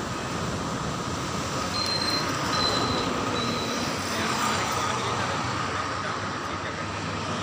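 Steady rushing background noise, like distant road traffic, with no clear single event; three short high tones sound about two to three and a half seconds in.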